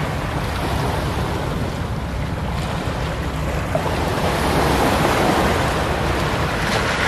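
Sea surf washing onto the shore, a steady rush that swells about four seconds in, with wind rumbling on the microphone.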